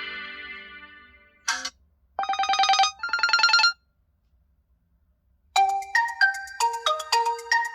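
Realme 11 Pro+ phone ringtones played one after another. A tone fades out, then a short chime sounds, then two rapid trilling rings. After a pause of nearly two seconds, a quick bell-like melody of short notes starts.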